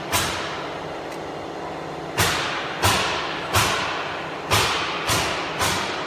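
A series of sharp knocks, one at the start and then about a second apart from about two seconds in, over a steady machine hum.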